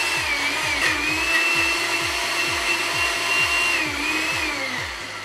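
Countertop glass-jar blender running at speed, blending food into a thick liquid. Its motor whine wavers as the load shifts, then falls in pitch and fades near the end as it winds down.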